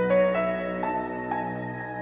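Background music: a slow melody of held notes over a sustained chord, with a new note about every half second.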